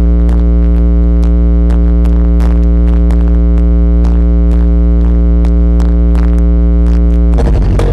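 Electronic DJ dance music played very loud through a horeg sound system of big subwoofer boxes: long held synth bass notes under a steady run of sharp percussion ticks, the bass line shifting to new notes near the end.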